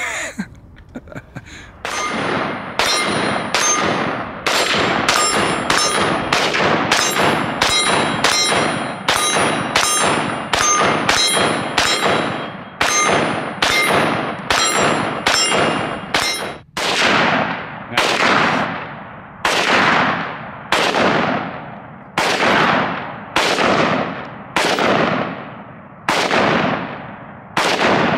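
AR-style rifle firing about thirty single shots at a steady pace, a little over one a second at first and slowing to about one a second in the second half, each shot trailing off in a long echo. Through the first half a metallic ringing carries on between the shots, typical of bullets striking steel targets.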